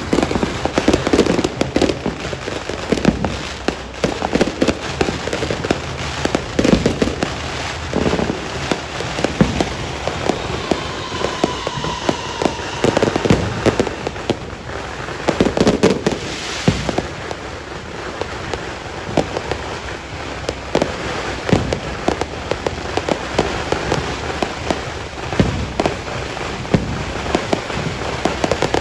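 Fireworks going off in a dense, continuous barrage: rapid sharp bangs and crackling, with heavier booms every second or two as shells burst overhead. A brief whistle is heard near the middle.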